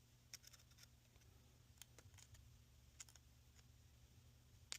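Faint, scattered metal clicks of a flathead screwdriver tip touching the terminals of a new run capacitor to discharge it, about seven light taps with the sharpest near the end, over a faint steady low hum.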